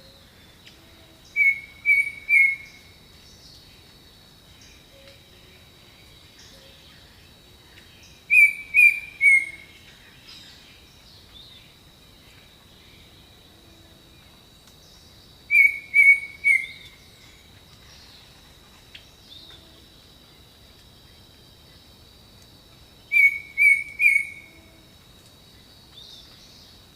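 Jungle birdsong: a bird gives a loud phrase of three quick notes, repeated four times about every seven seconds. A steady high tone and faint calls of other birds run underneath.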